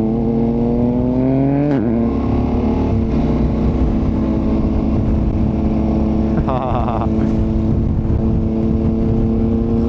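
KTM 1290 Super Adventure's V-twin engine accelerating with its pitch rising, then dropping sharply with an upshift just under two seconds in. After the shift it runs on steadily at even revs, over a low rumble of wind and road.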